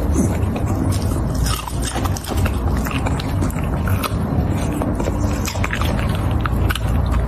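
Shiba Inu chewing raw broccoli, irregular crunchy bites close to the microphone, over a steady low hum.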